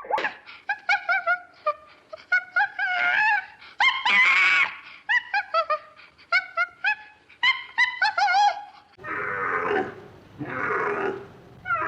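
Animal calls: a quick run of short, high, pitch-bending yelps, a few at a time. About nine seconds in, a different, lower and rougher drawn-out call starts.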